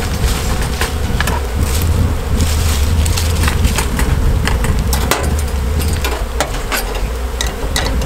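Honey bees buzzing steadily around a hive, with scattered sharp clicks and scrapes of metal being worked against the hive's metal lid.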